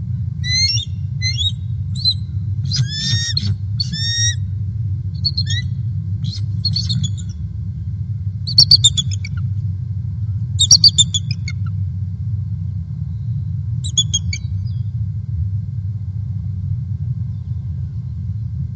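Bald eagles calling at the nest: a run of high, chittering chirps, with the two loudest bursts just past the middle and a last short call a few seconds later. A steady low rumble runs underneath.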